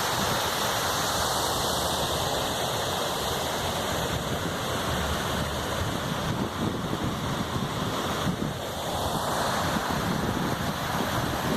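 Rushing water from a rain-swollen, muddy stream or runoff flowing steadily, with some wind noise on the microphone.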